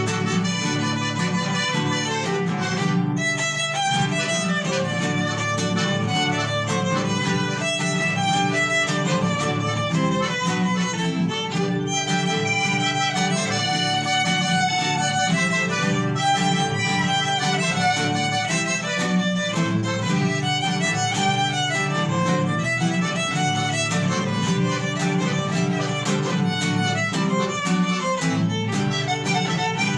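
Instrumental folk music: a violin carries the melody over guitar accompaniment, playing without a break.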